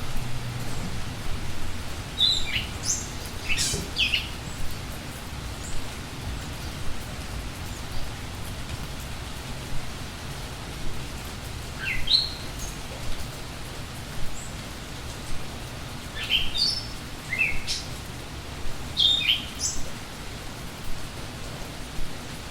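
Steady rain falling, with songbirds giving short, quick falling chirps in a few scattered bursts.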